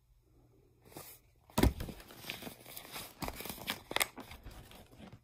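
Irregular knocks and rustling close to the microphone, starting about a second in. The loudest knock comes about a second and a half in, and several sharper clicks follow near the end.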